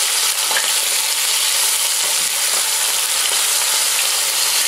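Small floured fish (roach, silver bream) frying in hot sunflower oil in a pan on high heat: a steady high sizzling hiss with faint crackles.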